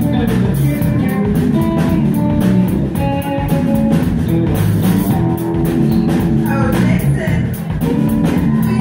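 Live soul band playing an upbeat groove: electric guitars, bass and drum kit keeping a steady beat, with held notes over the top.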